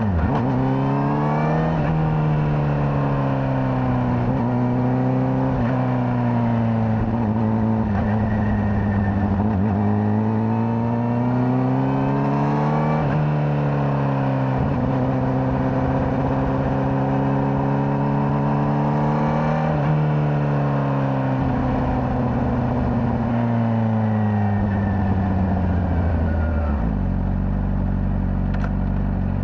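Honda CBR600RR inline-four engine through its stock exhaust, heard from the rider's seat, its pitch climbing and falling with the throttle, with sharp drops about a second in and about 13 seconds in. It settles to a lower steady note near the end, over a low rumble of wind on the microphone.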